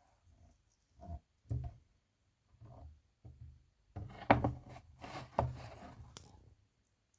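A series of short knocks and handling clatter, sparse at first and then denser and louder from about four seconds in.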